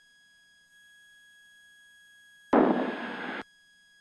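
Cessna 172 headset intercom audio: a low background with faint steady electrical tones, broken about two and a half seconds in by a loud burst of open-mic noise that lasts about a second and cuts off abruptly.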